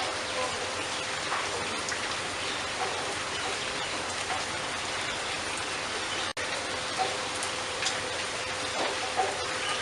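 Steady hiss of rain or running water, with faint short bird chirps now and then. The sound drops out briefly a little past the middle.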